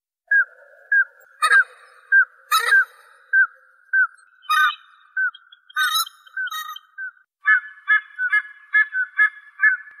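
Common scoter calls: short, piping whistled notes repeated about twice a second, with a few louder, rougher calls mixed in. About three quarters of the way through, the notes come faster and in several pitches at once.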